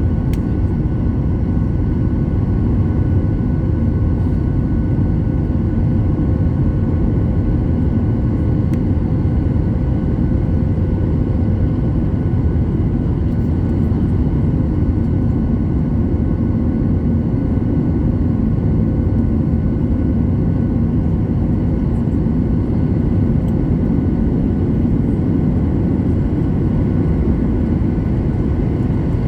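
Jet airliner climbing out after takeoff, heard from inside the cabin: a steady, loud rumble of engines and rushing air, with a few faint steady engine tones above it.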